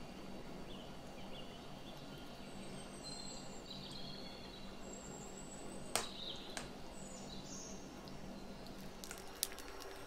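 Steady low background hum with faint bird chirps. Two sharp clicks, one about six seconds in and a smaller one near the end, from a metal spoon tapping a clear plastic dessert cup as chopped peaches are spooned in.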